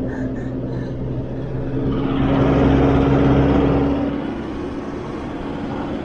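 Four-wheel-drive vehicle's engine running steadily as it drives over beach sand, heard from inside the cab, with a hum of tyre and road noise. The sound grows louder about two seconds in and eases off again about two seconds later.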